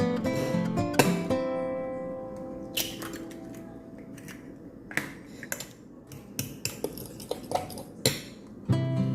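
Acoustic guitar background music: a strummed chord about a second in rings out, and the playing thins out for several seconds before coming back in full near the end. During the lull there are a few sharp clinks, like kitchen utensils or dishes.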